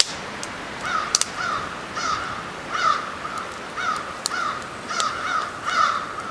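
Crows cawing, a series of harsh caws roughly two a second, beginning about a second in.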